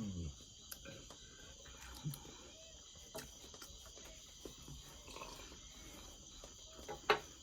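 Crickets chirping in a steady chorus, with a few light clicks and knocks and a louder knock near the end.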